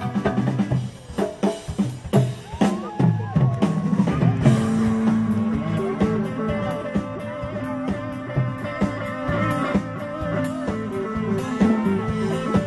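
Live band playing rock-style music on drums and electric guitars. Dense drum hits open the passage, a lead line slides up and down in pitch about two to four seconds in, then held guitar notes ring over the beat.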